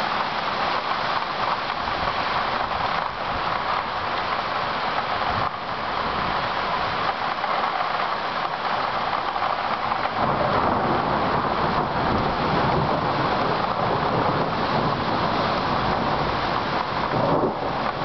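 Heavy rain pouring down on leafy trees, a dense steady hiss. About halfway through a deep low rumble of rolling thunder builds under the rain and carries on.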